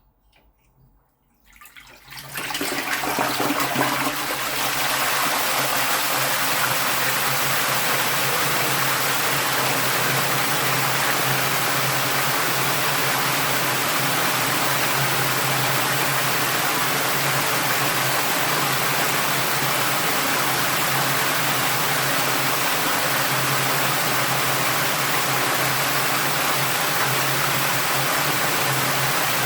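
LG T15DS top-loading washing machine with water rushing and churning loudly in its drum, starting about two seconds in and then holding steady over a low hum.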